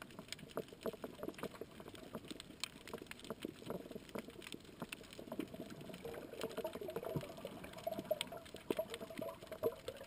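Underwater reef sound heard through a GoPro's waterproof housing: a steady, irregular patter of small clicks and crackles over the hiss and bubbling of moving water, growing a little louder in the last few seconds.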